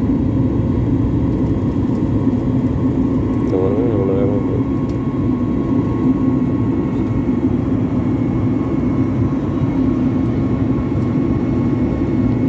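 Steady drone inside an airliner cabin in flight: engine and airflow noise heard at a window seat.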